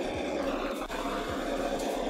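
Handheld butane kitchen torch burning with a steady hiss as its flame is passed over wet acrylic paint to pop air bubbles.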